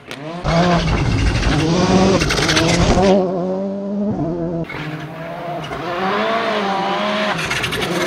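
Volkswagen Polo GTI R5 rally car's 1.6-litre turbocharged four-cylinder engine at full throttle, rising and falling in pitch through quick gear changes, with tyres scrabbling on loose gravel. The sound changes abruptly about half a second in, near three seconds and about four and a half seconds in, as separate passes are cut together.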